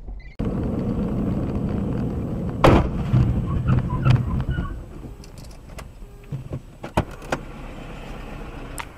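Car on the move, heard from inside: steady engine and road noise. A loud knock comes almost three seconds in, followed by a few sharp clicks later on.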